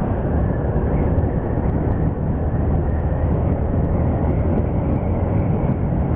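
Steady wind rush on the microphone mixed with motorcycle running and road noise, riding at an even speed.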